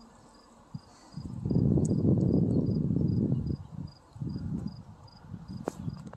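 Crickets chirping in a steady rhythm, a few high chirps a second. Under them a low rumbling noise swells loud from about a second and a half in, holds for about two seconds, then eases off into weaker rumbles.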